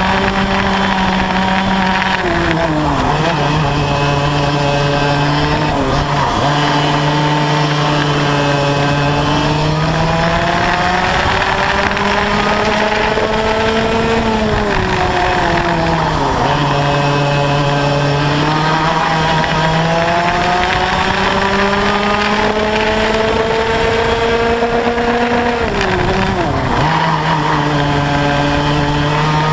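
Yamaha KT100 100cc two-stroke single-cylinder kart engine with a Y-pipe exhaust at racing speed. The revs climb steadily along the straights and drop sharply several times as the kart slows for corners.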